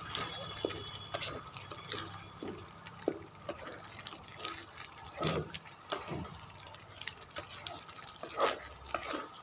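Sponge gourd and chana dal curry simmering in the pan, bubbling in the water the gourd releases, with scattered small pops and drips over a faint steady hum.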